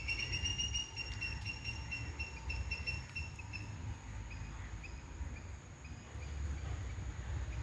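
A bird's high, rapidly pulsed trill for the first few seconds, then faint short repeated chirps, over a low rumble and a steady thin high-pitched tone.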